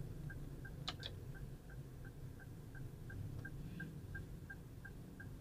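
Car's turn-signal indicator ticking steadily, about three ticks a second, over a low rumble of road and engine noise in the cabin, with two sharp clicks about a second in.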